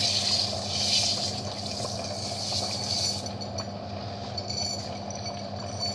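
Dry rice poured from a glass into a kazan of boiling water: a hiss of grains showering in for about three seconds, then stopping, while the water keeps boiling.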